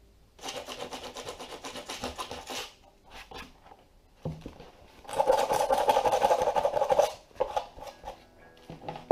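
Sanding on a plastic motorcycle mudguard, an abrasive scratching in two bursts: about two seconds starting half a second in, then a louder two seconds starting about five seconds in. A short knock comes between them.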